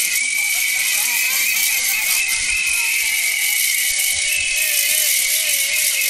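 Steady, loud din of a street protest crowd, dominated by the clatter of ratchet-style hand rattles and other shrill noisemakers. A wavering, slowly falling tone sounds over it from about four seconds in.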